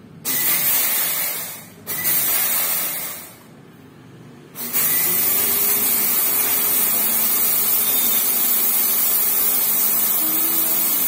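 Water gushing from a tap into a bathtub. It comes in two short spurts, then is left running steadily from about five seconds in.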